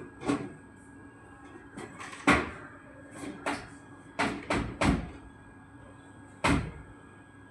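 A series of irregular knocks and clunks, about eight, the loudest about two seconds in, over a faint steady high-pitched tone.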